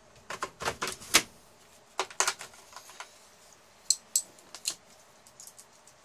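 Sharp metal clicks and light rattles in three short clusters, from steel glow plugs knocking together as a Jubilee clip (hose clamp) is fitted around them.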